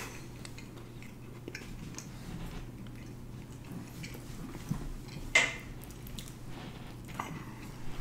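Mouths chewing dry biscuits with soft, faint wet clicks over a steady low hum, and one sharper click about five seconds in.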